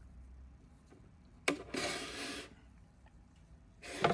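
A heavy old sewing machine being handled and shifted: a sharp click about a second and a half in, then a brief scraping rub, and another knock near the end.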